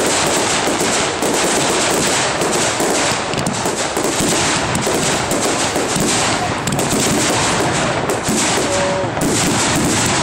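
Fireworks display going off in rapid, near-continuous succession: a dense run of crackling and bangs with no break.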